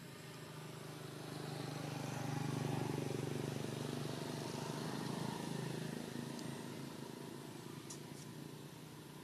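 A motor vehicle passing by: a low engine hum that swells over a couple of seconds and then slowly fades away.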